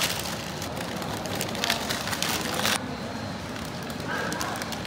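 Paper wrapper rustling and crinkling as a wrapped doner is opened, for about the first three seconds, then a quieter stretch of room background.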